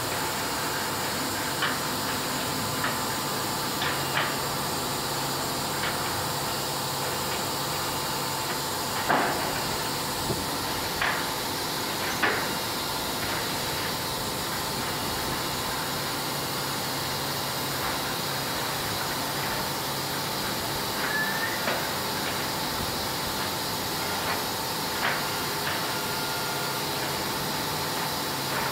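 Wood-Mizer WM3500 sawmill machinery running with a steady hiss and hum. Scattered metallic knocks and clanks come from the log deck, the loudest about nine seconds in.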